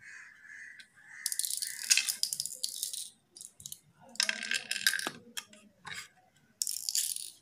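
Cowrie shells clicking and rattling together in a hand and dropping into the pits of a wooden pallanguzhi board, in three bursts of quick clicks.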